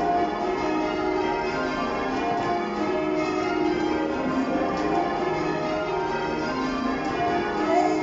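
A ring of twelve church bells cast in 2017, tenor 21 cwt in E-flat, being rung full-circle in change ringing: a continuous, even stream of overlapping bell strokes, one bell after another.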